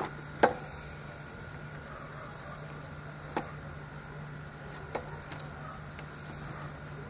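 A few short sharp clicks and taps, the loudest about half a second in, as wires and a terminal are handled inside a welder's metal cabinet, over a steady low hum.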